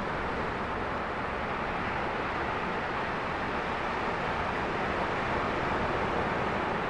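Steady rushing noise of breaking surf.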